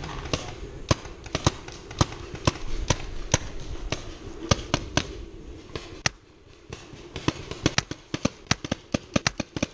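Paintball markers firing in a firefight: a run of sharp pops, some loud and close, others fainter. After a brief lull about six seconds in, the shots come faster near the end, several a second.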